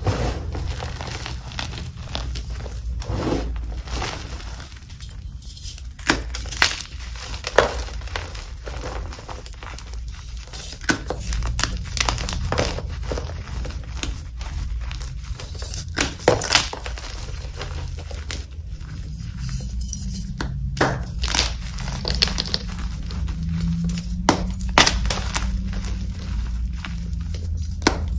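Dip-dyed Magking gym chalk blocks crushed and crumbled in the hands: irregular dry crunches and crackles as the blocks break apart and the powder is squeezed, with a few sharper snaps. The air-dried blocks are crunchy yet soft.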